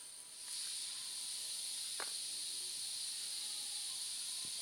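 A steady high-pitched hiss that sets in about half a second in and holds even, with a faint click or two.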